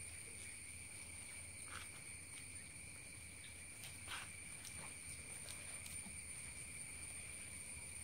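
Faint, steady, high-pitched insect chirring, with a few soft scrapes and crackles as honeycomb is pulled by hand from inside a clay pot, the clearest about four seconds in.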